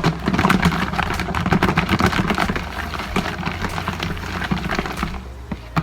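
Sauced chicken wings being shaken inside a lidded container to coat them, a dense irregular rattling and knocking that dies down after about five seconds.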